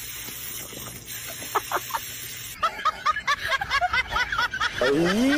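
A rapid run of short chirping animal calls, about four or five a second, then a longer call rising in pitch near the end.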